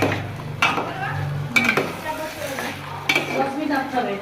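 A spatula stirring gobindobhog rice in ghee in a cooking pot: repeated scrapes and clinks against the pot, about one every second, over a light frying sizzle.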